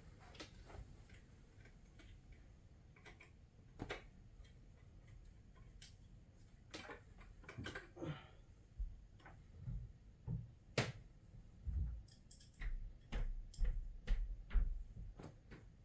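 Scattered sharp clicks and light knocks of curtain hooks being worked free at the curtain rod. In the second half, a run of dull low thumps comes in and is the loudest sound.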